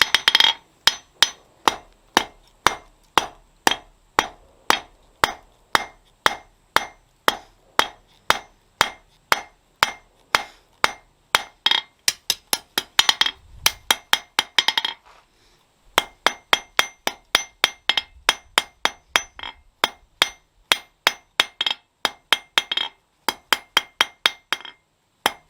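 Hand hammer striking hot steel on an anvil in steady forging blows, about two to three a second, each blow with a short metallic ring. The hammering stops for about a second roughly two-thirds of the way through, then resumes at the same pace.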